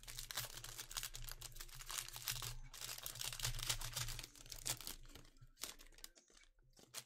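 Plastic and foil crinkling as a stack of Panini Prizm trading cards and their sleeves and wrapper are handled. It is a dense crackle for about five seconds, then a few scattered clicks.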